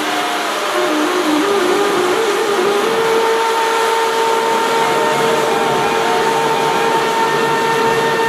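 Mi-17 helicopter's gas turbine running, a loud steady whine over a rushing hiss, with no rotor beat while the blades stand still. One tone climbs over the first few seconds and then holds level, as when a turbine spools up.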